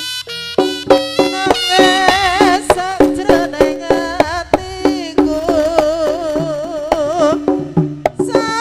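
Live Javanese jaranan band music: drums strike a quick, steady rhythm under a sustained melody line with a wide vibrato. The drums come in strongly about half a second in.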